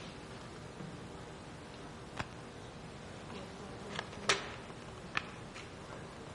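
Quiet hall room tone with a handful of small, sharp clicks and knocks scattered through it, the loudest a little past four seconds in.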